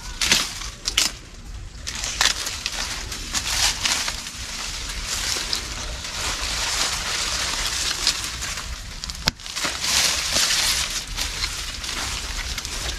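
Dry sugarcane leaves rustling and crackling as a cane stalk is broken off and handled, with a few sharp snaps: two in the first second and one about nine seconds in.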